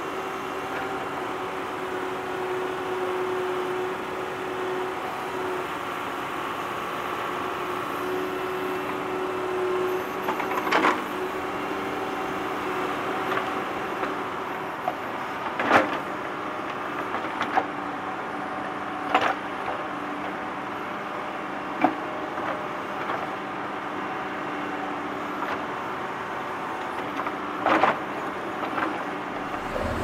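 Hyundai tracked excavator running with a steady engine drone and held tones that come and go, broken by several sharp knocks and clanks of the bucket working broken brick and concrete rubble, most of them over the second half.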